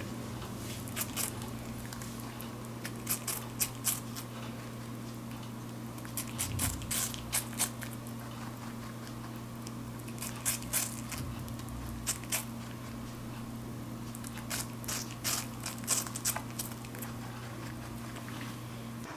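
A rabbit biting into and crunching a crisp apple slice, in short clusters of crunches every few seconds over a steady low hum.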